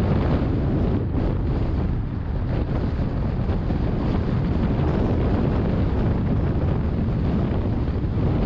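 Steady rumble of wind and road noise from a car cruising at speed, heaviest in the low range and unbroken throughout.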